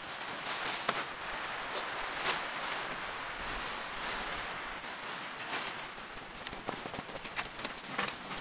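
Steady rain on a tent roof, with rustling nylon fabric and scattered light clicks and taps as a small cot tent is unfolded and set up on a camping cot.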